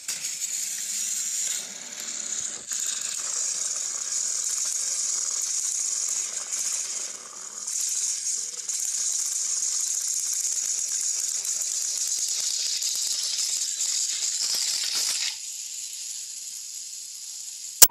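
Battery-powered toy train engines running on plastic track, their small motors and gears whirring and rattling as two engines push head-to-head against each other. The whirring drops off well past halfway through, and there is a sharp click at the very end.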